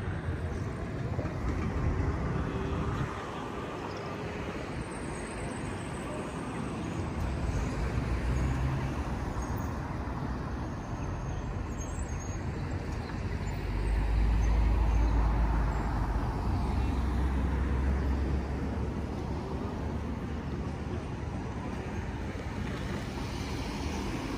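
City street traffic: steady noise of vehicles on the road, with a louder low rumble from a passing vehicle about halfway through that lasts around four seconds.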